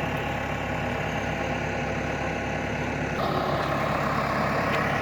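John Deere tractor's diesel engine running at idle, a steady low hum; about three seconds in it gets a little louder and harsher, as if the revs come up to move off.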